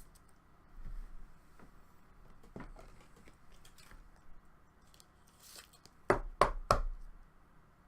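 Soft handling noises from trading cards and their packaging being moved on a table, with three quick sharp taps a little after six seconds in.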